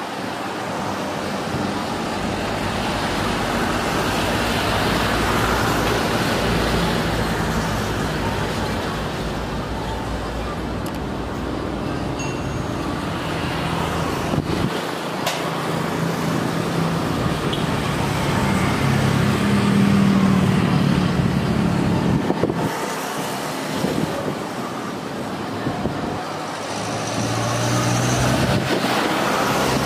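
Airbus A350 jet engines at taxi power: a steady rushing noise with a low hum underneath. It swells and fades as the airliner moves, loudest about two-thirds of the way in.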